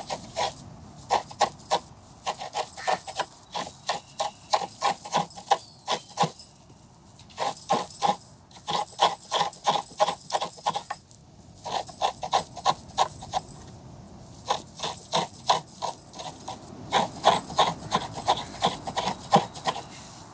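Thin metal bangles on a wrist jingling in quick bursts of clinks as the hands work, the bursts broken by short pauses about every few seconds.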